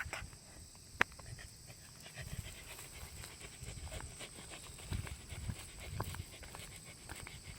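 Shetland sheepdog panting in uneven puffs, with small ticks and one sharp click about a second in.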